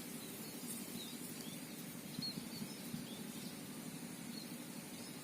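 Faint, scattered short bird chirps over a steady low background rumble of outdoor noise.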